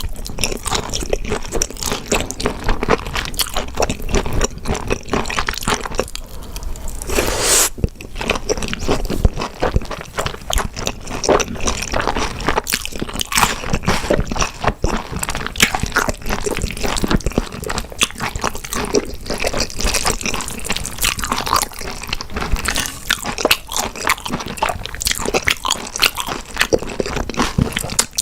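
A person chewing and biting food up close, with a continuous run of crunchy, wet mouth noises from eating grilled beef intestines and spicy stir-fried noodles; a brief louder noisy burst comes about seven and a half seconds in.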